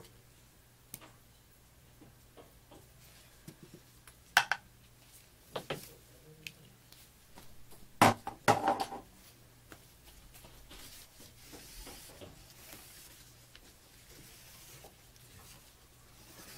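Occasional light knocks and clatter of utensils and plastic containers being handled on a tabletop, the loudest a quick cluster about eight seconds in and a single knock about four seconds in, over a faint low hum.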